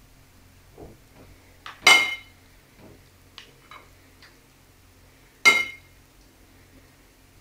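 A metal spoon clinks sharply twice against a ceramic plate, about two seconds in and again about five and a half seconds in, each strike ringing briefly. A few light taps fall between them.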